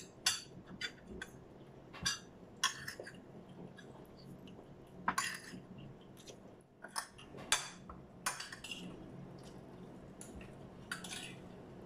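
Cutlery and dishes clinking and tapping during a meal: scattered short clicks and knocks at irregular intervals, a few of them louder.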